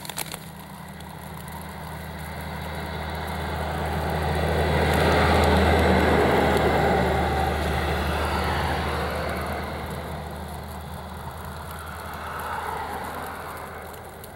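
Snow plow truck pushing snow with its front blade as it approaches, passes and pulls away: a heavy truck engine running under a rushing hiss of snow thrown off the blade. The sound swells to its loudest about six seconds in and then fades.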